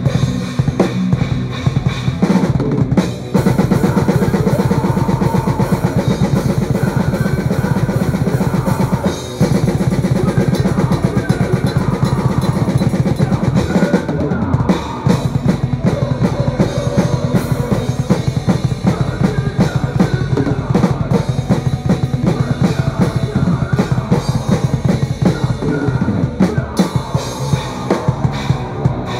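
Metalcore drumming on a full drum kit, with fast, dense bass-drum runs under snare and cymbals, together with an electric guitar. The playing drops out briefly about three and nine seconds in.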